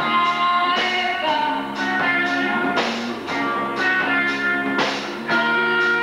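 Live rock band playing: a drum kit with loud cymbal crashes about every two seconds under sustained held chords, and a woman singing into a microphone.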